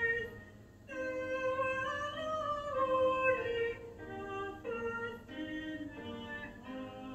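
Recorded hymn music: a sung melody in long held notes over accompaniment, with a short break just after the start.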